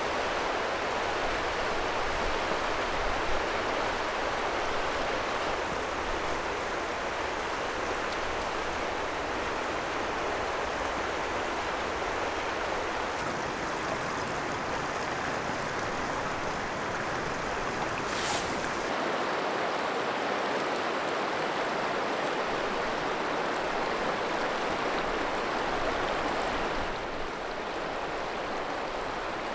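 A river running over stones: a steady rush of flowing water, unbroken throughout, dipping slightly in level near the end.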